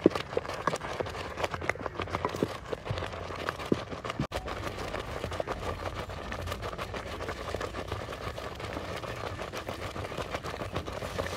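A wooden stick stirring thick porridge in an aluminium pot: quick scraping and knocking against the pot for the first four seconds or so. After a brief break, a steadier hiss with only a few soft knocks.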